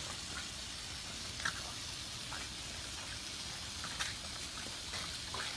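Garden hose spray hissing steadily as the water patters down, with a few faint, short, high squeaks.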